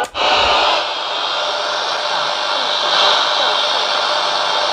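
Paramount five-band portable radio hissing loud, steady static through its speaker on the shortwave and medium-wave bands as the tuning knob is turned, with no station coming in; the static cuts in just after a brief drop at the start. The owner puts the poor reception down to heavy electrical interference in the shop.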